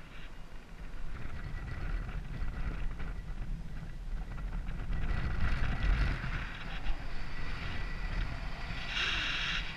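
Wind buffeting the camera microphone of a paraglider circling in a strong thermal: a low rumbling rush that rises and falls in gusts, with a brighter hiss breaking in near the end.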